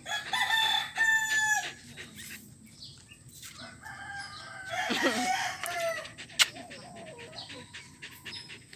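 A rooster crowing, first at the start and again about five seconds in, with a single sharp click just after six seconds in.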